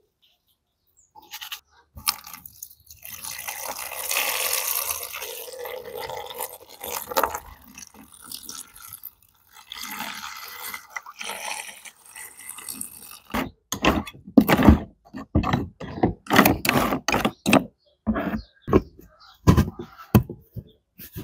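Water splashing and trickling in two stretches, then a quick run of sharp knocks and clicks for the last several seconds.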